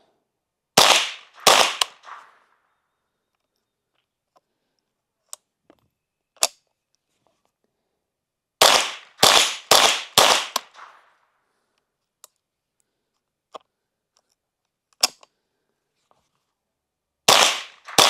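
Suppressed .22 pistol shots from a Ruger Mark IV fitted with a Q Cherry Bomb suppressor: three quick shots about a second in, a string of about five a few seconds later, and another string starting near the end. Each shot is a sharp crack with a short tail, and faint single clicks fall in the pauses between the strings.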